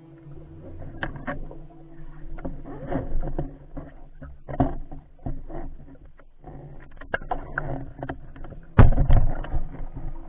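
Muffled underwater sound picked up by a diver's camera: scattered clicks, knocks and water swishes over a steady low hum, with a loud low thump about nine seconds in.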